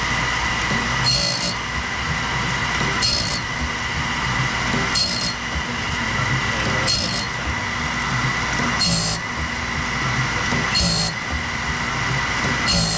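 Wood-Mizer BMS250 bandsaw blade sharpener grinding a blade: a steady whine from the spinning grinding wheel, with a short, sharp grinding rasp about every two seconds as the wheel cuts each tooth's gullet in turn. The cut is set about as aggressive as the operator wants it.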